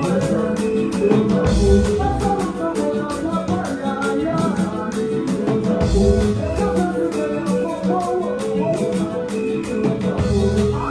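Upbeat song with a steady drum beat, cymbal ticks and plucked strings, with singing; deep bass hits land about every four seconds.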